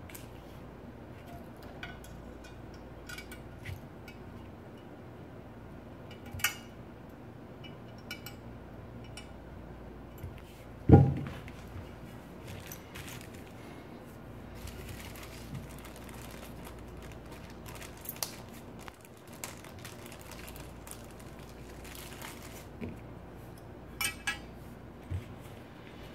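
Small metal parts of a model Stirling engine kit clinking and clicking with plastic bags crinkling, in scattered light knocks, with one heavy thump about eleven seconds in as the base plate is set down on the bench.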